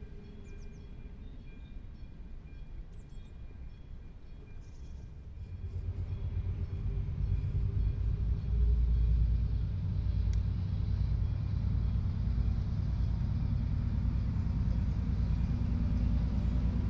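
Distant freight train approaching on diesel haulage: a low, steady rumble that comes in about six seconds in and swells, after a quieter stretch with only a faint hum.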